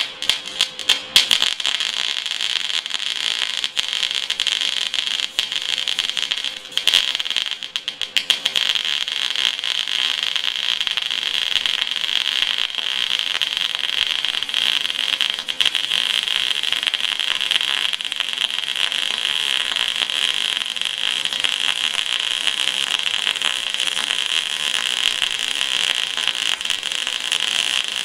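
MIG welding arc from an Eastwood MIG 250 running 0.025 wire vertical up, crackling steadily. It sputters as it strikes near the start and again around seven to eight seconds in, then settles into an even crackle.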